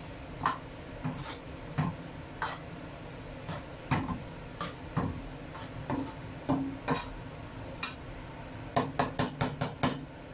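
A spatula scraping and knocking against a wok while stir-frying sweet potato jelly, with irregular strokes about once or twice a second, then a quick run of about eight knocks near the end.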